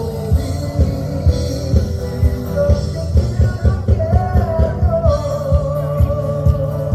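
Loud music with a steady drum beat and a sung or held melody line.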